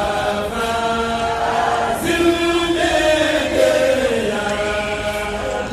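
Several voices chanting together in long held notes that slide from one pitch to the next.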